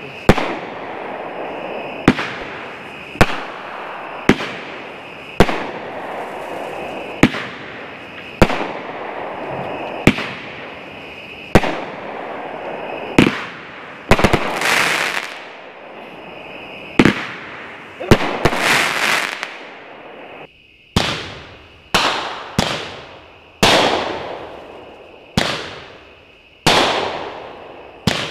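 A 14-shot 200 g consumer firework cake firing, one mortar shot about every second, each a sharp bang with a fizzing, crackling tail. The crackle is densest in two stretches near the middle. About two-thirds in the sound cuts out briefly and a fresh run of shots begins.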